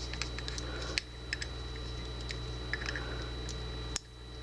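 Light, scattered clicking and ticking of small brass lock pins and tools being handled while the deadbolt's pin stacks are sorted, with two sharper clicks, about a second in and near the end, over a steady low hum.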